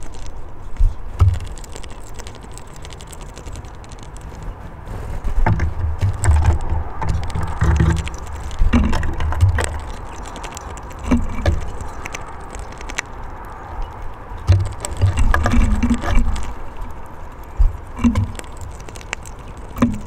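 Irregular sharp clicks and taps of a hawfinch and bullfinches pecking and cracking seeds at a wooden bird table, over an intermittent low rumble.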